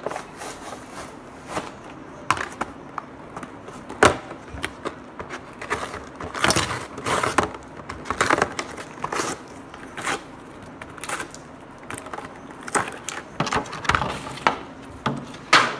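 Action figure packaging being pulled open by hand: irregular crackling, rustling and scraping of cardboard and plastic, with a few sharp snaps.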